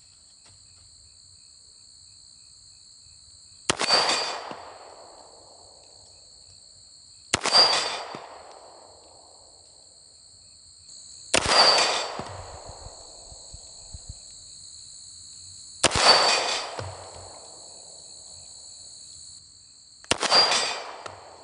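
Five single pistol shots, about four seconds apart, from a Smith & Wesson Model 52-2 semi-automatic firing .38 Special wadcutter reloads, emptying its five-round magazine. Each report dies away over a second or so, over the steady chirring of crickets.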